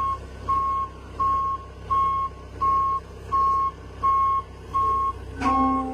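Reversing alarm on a piece of heavy equipment backing up, one steady high beep about every 0.7 s over the low rumble of its diesel engine. Near the end, a click and a brief lower steady tone sound alongside the beeps.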